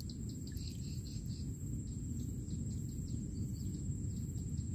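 Outdoor insect chorus: a steady high-pitched whine and a rapid high chirping about five times a second, over a steady low rumble.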